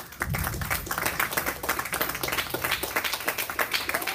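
Applause from a small audience, many hands clapping at once. It fills in quickly at the start.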